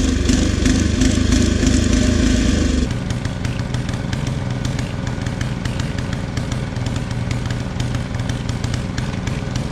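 Craftsman rear-tine tiller's small gasoline engine running steadily under load as its tines churn soil, now running on its own after a plugged carburetor jet was cleared. About three seconds in the sound drops abruptly to a quieter, more distant engine with a patter of small knocks.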